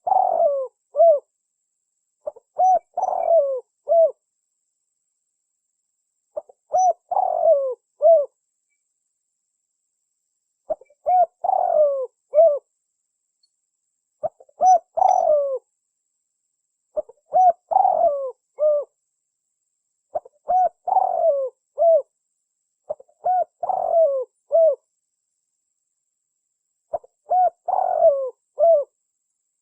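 Spotted dove (tekukur) cooing: a recorded lure call, the same few-note coo phrase repeated about nine times, every three to four seconds, with silence between phrases.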